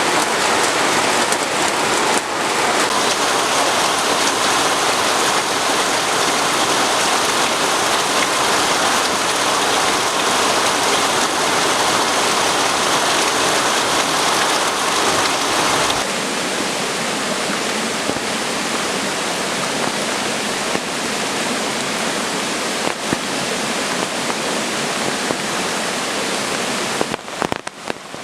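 Rain falling steadily in a dense, even hiss. About sixteen seconds in it abruptly becomes somewhat quieter, and near the end it thins out into separate drops and splashes.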